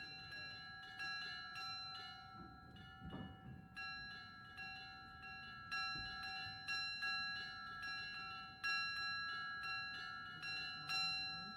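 Russian Orthodox church bells rung by hand: the smaller bells are struck several times a second, their ringing tones overlapping, with a few louder strokes in the second half.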